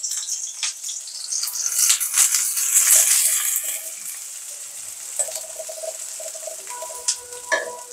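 Sliced onions sizzling in hot oil in a steel karai, stirred and scraped with a metal spatula. The sizzle is loudest for the first few seconds, then settles lower, with a couple of sharp metal clinks near the end.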